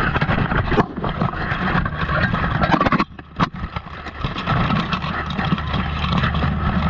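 Steel armour and weapons clanking and knocking in a close-quarters buhurt melee, picked up by a camera strapped to a fighter's chest. Underneath runs a constant low rumble of handling noise from the camera moving against his kit, dipping briefly about three seconds in.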